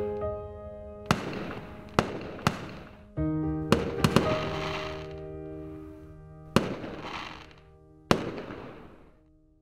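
Aerial fireworks going off in about seven sharp bangs, each one trailing away, over soft background music with held notes; the sound fades out near the end.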